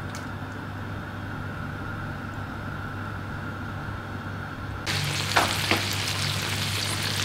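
Tiger prawns sizzling in olive oil with garlic in a frying pan over low heat; the sizzle comes in suddenly, louder, about five seconds in, over a low steady hum.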